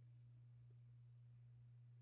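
Near silence, with only a faint steady low hum.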